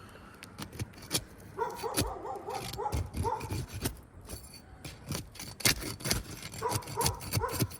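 Asphalt shingles being pried up from their sealant strip, with irregular sharp cracks, scrapes and clicks as the bond tears and pulls fibres from the mat. Twice a run of short, wavering high squeals sounds over the work.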